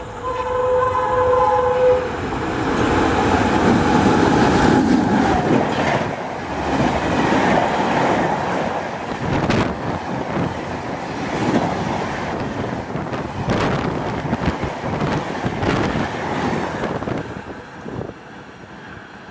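WAP-7 electric locomotive's horn sounding a steady two-tone blast as it approaches, ending about two seconds in. The locomotive and its express coaches then pass at high speed, wheels clattering over the rail joints, and the sound fades away near the end.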